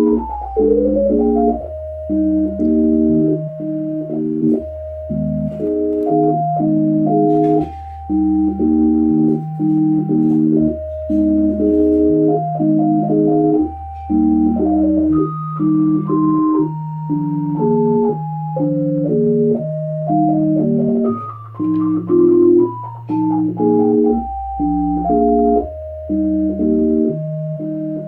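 Yamaha A4000 sampler playing a sequenced tune in plain, organ-like electronic tones: a melody over repeated chords and a stepping bass line.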